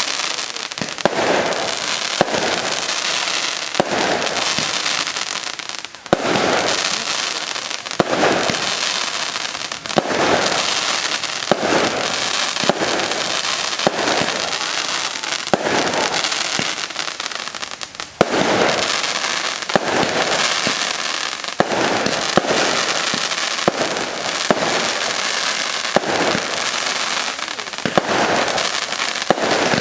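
Fireworks bursting in a continuous, rapid barrage: many sharp bangs one after another over dense crackling, with no pause.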